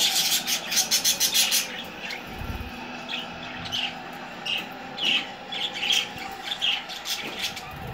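Budgerigars chattering: a fast run of scratchy chirps in the first second and a half, then single chirps every half second or so. There is a low dull bump about two and a half seconds in.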